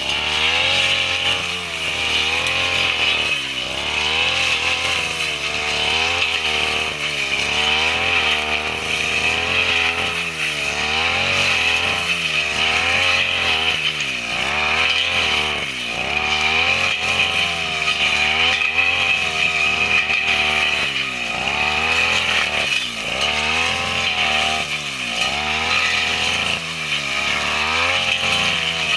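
Two-stroke brush cutter (grass trimmer) engine running under load as it cuts grass and undergrowth, its pitch rising and falling every second or two as the throttle is worked and the blade bites into the growth.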